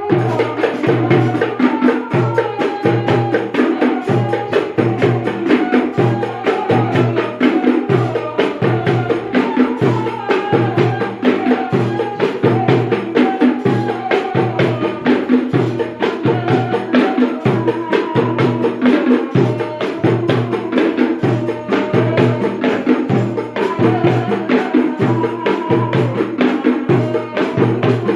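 Hand drums playing a steady, repeating rhythm under a wavering melody line in a devotional music practice.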